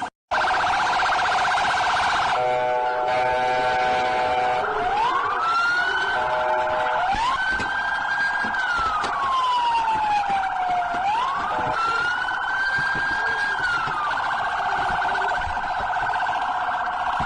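Electronic police car siren switching between patterns. It opens with a fast warble, gives a short steady multi-tone stretch, then slow wails that rise and fall over a few seconds each, and goes back to the fast warble for the last few seconds. There is a momentary cut in the sound just at the start.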